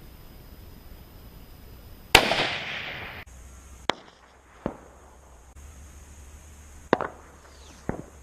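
Rifle shots heard from down range: one loud sharp crack about two seconds in with a long rolling echo, then four more sharp cracks in two pairs, each pair under a second apart, the loudest about seven seconds in.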